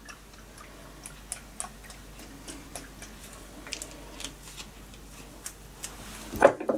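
Faint, irregular light clicks and ticks while a small glass bottle of chipotle Tabasco is shaken over a bowl of raw mince, then a louder knock near the end as the bottle is set down on a wooden counter.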